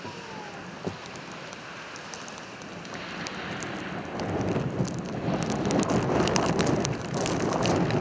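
Snowstorm wind gusting, a steady rushing that grows stronger about halfway through, with scattered light ticks.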